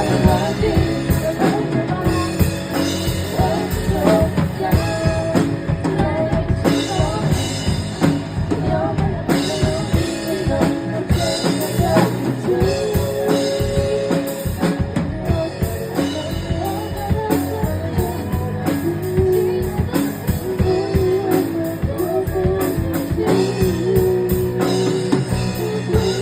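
Drum kit played along with a sped-up recording of a pop ballad, with steady kick, snare and cymbal hits under a sung melody and bass.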